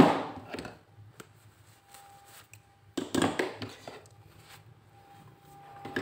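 Steel pliers being handled and set down on a hard surface: a sharp knock at the start, then a short clatter of knocks about three seconds in.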